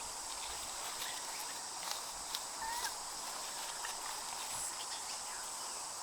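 Insects buzzing steadily in two high, unbroken tones. A few faint clicks and a short faint chirp come about two and a half seconds in.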